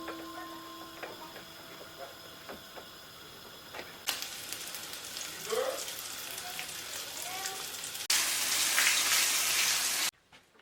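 Food sizzling in a frying pan, a steady hiss that grows louder in steps and is loudest for the last two seconds before it cuts off suddenly.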